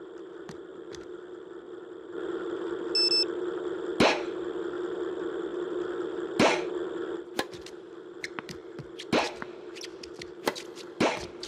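Tennis ball machine switched on and running with a steady hum, a short beep sounding just after it starts, firing balls with two loud sharp pops. The hum stops, then comes a series of sharp knocks of tennis balls bouncing and being struck with a racket.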